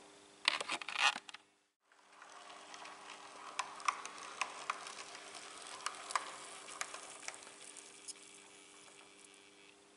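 Model railway diesel locomotive, a Powerline T-Class, running along the track: a faint steady electric-motor hum with a hiss of running gear, and irregular sharp clicks as the wheels pass over rail joints. A brief clatter comes about half a second in, before a short silence.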